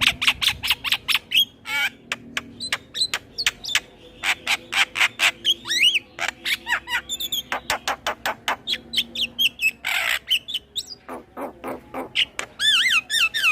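Male Javan myna (jalak kebo) singing a fast, varied song: rapid strings of sharp chattering notes mixed with whistled glides and harsh squawks, with a longer harsh note about ten seconds in.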